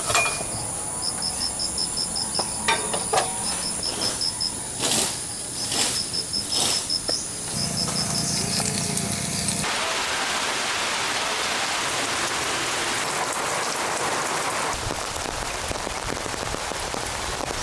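Metal knocks and clinks as a griddle is set on a portable gas stove and tongs turn bananas on it. Then, from about ten seconds in, steady rain falling.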